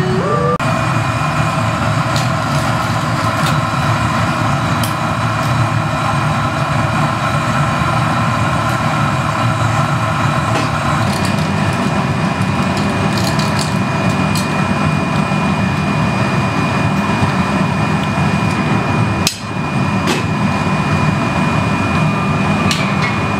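Steady roar of glassblowing-studio gas burners and blower fans: a heavy low rumble with a few steady whining tones over it and occasional light metal clicks. It dips briefly once, late on.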